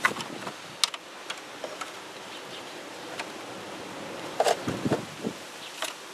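Scattered light clicks and rattles of plastic parts and wiring being handled and refitted in a car's engine bay, with a cluster of louder knocks and rustling about four and a half seconds in, over a steady background hiss.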